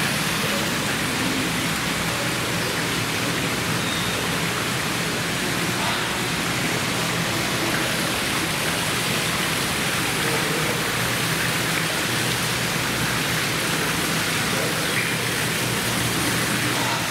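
Steady rushing noise of falling water, even throughout, with a low hum beneath.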